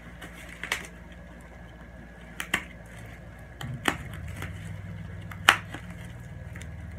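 Parcel packaging being handled: a few scattered sharp clicks and snaps, the loudest about five and a half seconds in, over a low rumble that starts around halfway.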